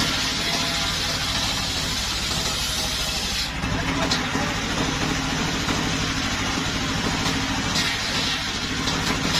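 Engine-driven circular saw bench running steadily, its large blade ripping timber boards. The hiss of the blade cutting wood comes and goes over the steady engine drone.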